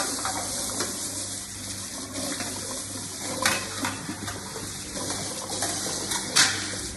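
Tap water running steadily over a dishwasher filter as it is rinsed and scrubbed, with a couple of brief knocks about three and a half and six seconds in.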